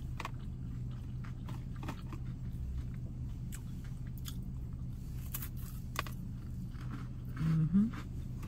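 A person chewing and crunching food close to the microphone: irregular small crunches and clicks over a steady low hum. A short hummed 'mm' comes near the end.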